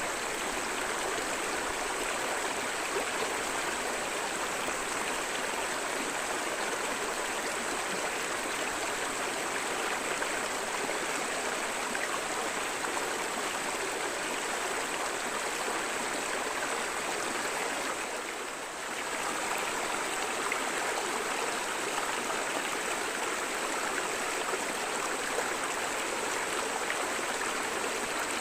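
River water flowing over rocks: a steady rushing and babbling, dipping briefly about two-thirds of the way through.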